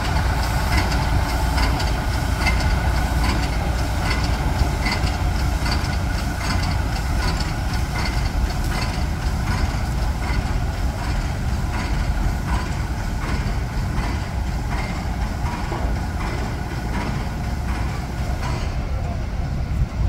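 GE 25-ton diesel locomotive idling with a steady low rumble while it turns slowly on a railroad turntable, with a light clicking that repeats a little more than once a second.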